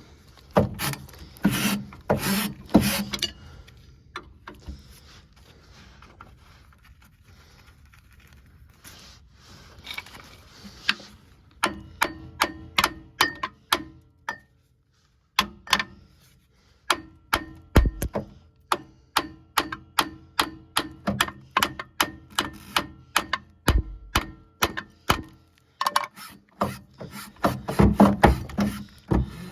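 Hand-tool work on a Jeep's rear shock mounts: a few knocks, then a long run of regular sharp clicks, two or three a second.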